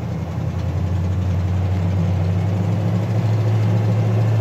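Jeep J20 pickup's 5.9-litre V8 and drivetrain droning steadily while cruising at about 80 km/h, heard from inside the cab. The low hum grows a little stronger about three seconds in.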